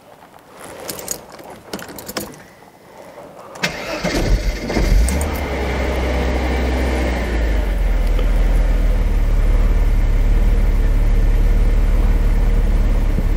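A few small clicks, then about three and a half seconds in the starter cranks the 1991 Mercedes-Benz 300 SL (R129)'s three-litre straight-six. It catches within about a second and settles into a steady idle, heard from the driver's seat.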